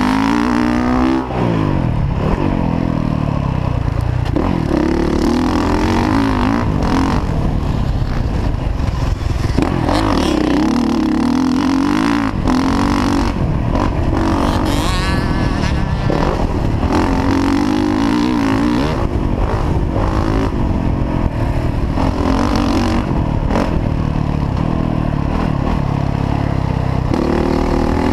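Motocross dirt bike engine revving up and falling back over and over as the bike accelerates, shifts and slows around the track, heard from on board. About halfway through, one rev climbs to a much higher pitch before dropping away.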